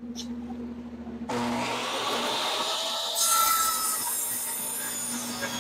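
Table saw switched on about a second in, spinning up and running with the dust collector that starts with it, then, from about three seconds in, the blade cutting into a board clamped upright in a tenoning jig sliding along the fence.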